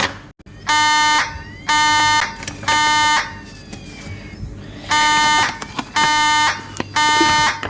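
Fire alarm horn sounding the temporal-three evacuation pattern: three short buzzy blasts about a second apart, a pause, then three more. It is the system in alarm after a pull station has been pulled.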